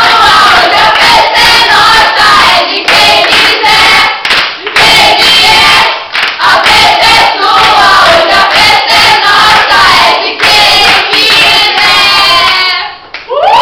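A group of teenagers singing loudly together in a chorus, clapping along, with the song breaking off briefly near the end.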